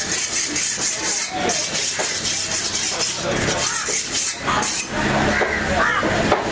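Steady hissing background noise with faint voices, broken by a few sharp knocks of a cleaver chopping needlefish on a wooden board; the background fills out lower about two-thirds of the way in.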